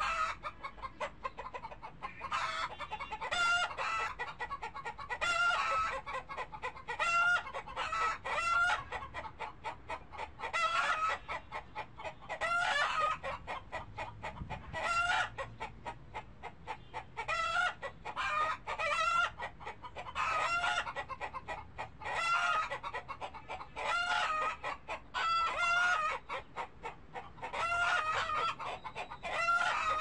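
Domestic chickens clucking and calling, short pitched calls coming in clusters every second or two.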